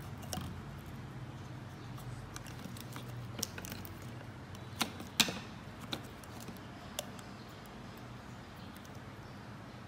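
Clear adhesive tape being handled and cut with scissors: a few short, sharp clicks and snaps, the loudest about five seconds in, over faint background noise.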